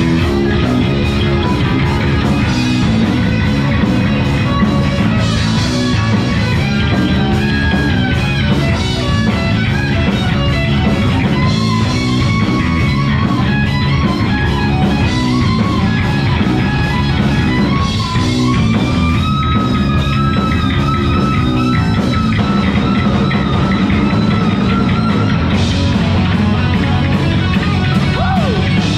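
Heavy metal band playing live: loud distorted electric guitars and bass over a steady drum beat, with a held, wavering lead line above them.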